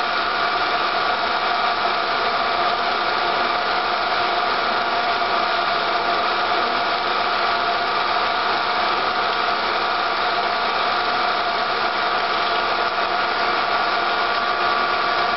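Home-movie film projector running: a steady mechanical whir with a few steady hum tones, unchanging.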